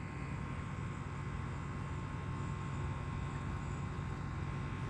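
A passing train is heard from a distance as a steady low rumble with a faint steady hum.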